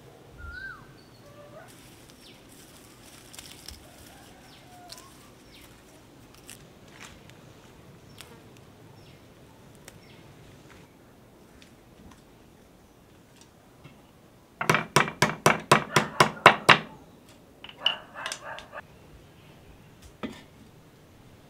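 Quiet garden ambience with a few short bird chirps and faint snaps and rustles of leaves being picked. About two-thirds of the way in, a hen clucks in a rapid, loud run of about ten clucks over two seconds, followed by a shorter, quieter run.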